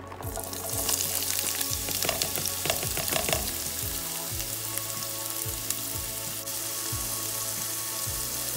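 Chopped bell peppers and sweet onion sizzling in hot olive oil in a pan, the sizzle starting suddenly as they go in. A utensil clicks against the pan as they are stirred, between about one and three and a half seconds in.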